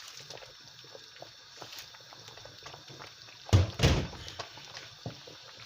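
Two heavy thumps close together about three and a half seconds in, with small clicks and rustles of handling around them.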